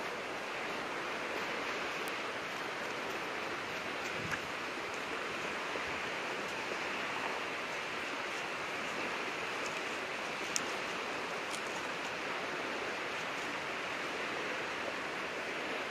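Steady rush of sea surf, an even hiss without distinct swells of separate waves, with a couple of faint ticks.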